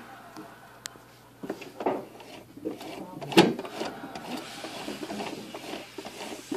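Domestic sewing machine: a few knocks and clicks as it is handled, the loudest about three and a half seconds in, then a rapid run of stitching strokes.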